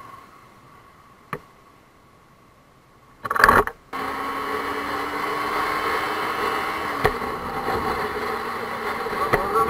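Motorcycle riding in traffic, heard from a helmet camera: engine hum and wind noise, faint for the first three seconds, then a short loud burst of noise and a steady louder hum whose pitch dips slightly about seven seconds in.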